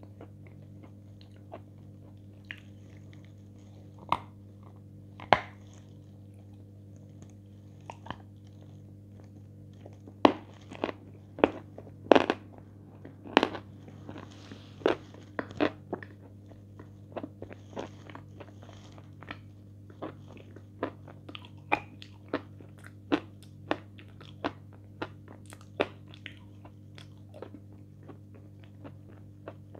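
Close-miked eating with the mouth closed: crisp crunches and chewing as a hard white block dipped in a brown paste is bitten and eaten, a few crunches at first, then many in quick succession from about a third of the way in.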